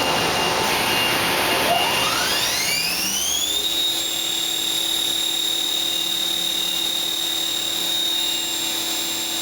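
Fadal VMC5020A vertical machining center's spindle run up to high RPM: a whine rising in pitch for about two seconds, starting about a second and a half in, then holding as a steady high whine at speed.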